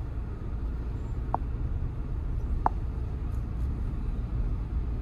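Steady low road and engine rumble inside the cabin of a Mahindra XUV700 under way on the highway. Two short high beeps come about a second and a half apart.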